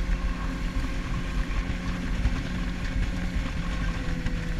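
A small fishing boat's motor running steadily at speed, a constant low hum under the rush of water along the hull and wind.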